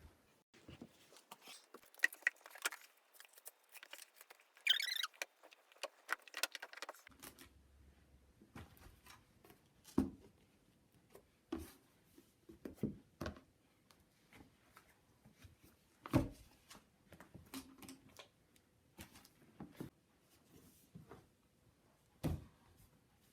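Books being handled and set down into piles: scattered soft knocks and clicks, a few louder thumps, and a brief rustle about five seconds in.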